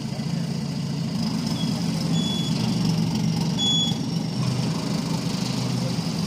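The diesel engine of an FX230 pick-and-carry crane running steadily at idle.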